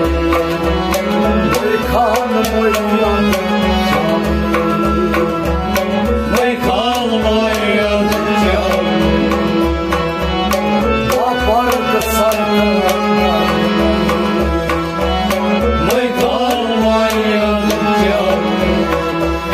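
Sufi folk music ensemble playing: a harmonium holds steady chords while a bowed sarangi plays a gliding melody over a hand drum's quick, steady rhythm.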